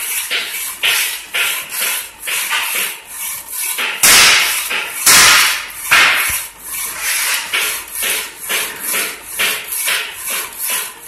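Power hacksaw cutting an iron bar, its blade rasping back and forth about twice a second. Two louder, harsher strokes come about four and five seconds in.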